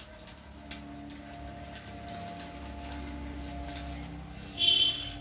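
Crinkling of a Lay's potato chip packet as a hand rummages inside it, over a steady low hum. A short, loud, high-pitched sound comes near the end.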